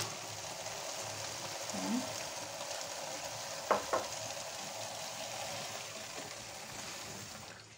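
Hot oil sizzling steadily in a frying pan, with two light clicks close together about halfway through; the sizzle stops suddenly near the end.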